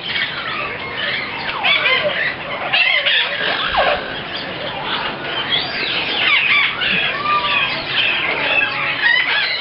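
A crowd of parrots calling at once: many overlapping shrill squawks and whistling calls.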